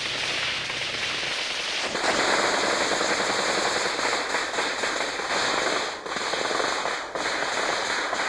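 Close-range automatic gunfire in an ambush: a dense, ragged crackle of overlapping shots breaks out sharply about two seconds in. It is heavily distorted on a small camcorder microphone. Before it, a rising rush of noise builds.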